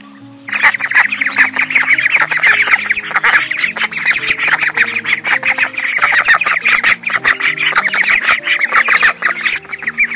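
A flock of domestic ducks quacking loudly, many rapid overlapping quacks starting about half a second in, over quiet background music.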